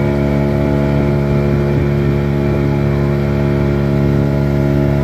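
Speedboat engine running steadily at a constant speed, a loud, even drone with no change in pitch.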